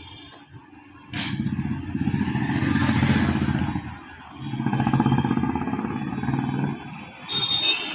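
Motorcycle engines running in town street traffic, swelling loud twice. A brief high-pitched tone sounds near the end.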